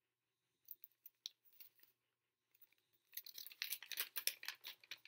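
Folded thick paper crinkling and rustling as a cut paper snowflake is unfolded: a few faint crackles at first, then a denser run of crinkling in the last two seconds.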